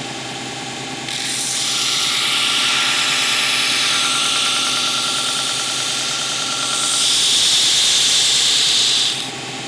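Belt side of a belt/disc sander running, with the curved edge of a plywood piece pressed against the moving sanding belt. The motor hums steadily while the wood-on-belt hiss starts about a second in, gets louder about seven seconds in, and eases off near the end as the piece is lifted away.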